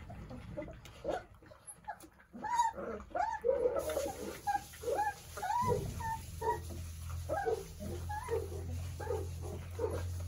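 Month-old Doberman puppies whimpering, many short rising-and-falling cries in quick succession. A steady low hum comes in a little over halfway through.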